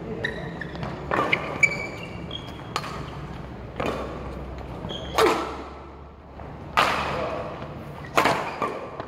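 Badminton rally in a large hall: rackets striking the shuttlecock about seven times, roughly one sharp, echoing hit every second or so.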